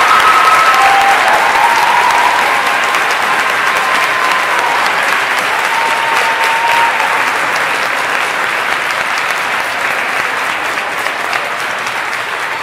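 A large crowd clapping, a dense steady applause that slowly dies down.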